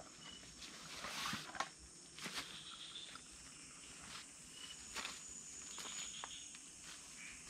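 Footsteps and rustling in dry leaf litter as a person handles gear on the forest floor and then walks off, in several short bouts with a few light clicks. Faint insects call in the background.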